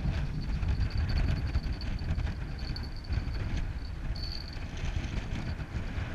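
Uneven low rumble of wind buffeting the camera microphone, with a faint high-pitched tone that comes and goes.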